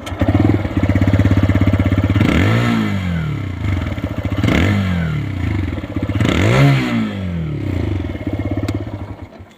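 TVS Raider 125's single-cylinder engine and exhaust starting up and idling, blipped three times with the throttle, each rev rising and falling back to idle, then dying away near the end.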